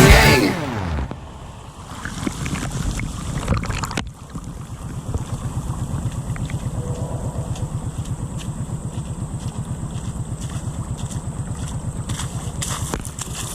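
Kawasaki Prairie 650 ATV's V-twin engine running at low speed with a steady, even pulsing beat, with wind on the microphone. A sharp knock about four seconds in.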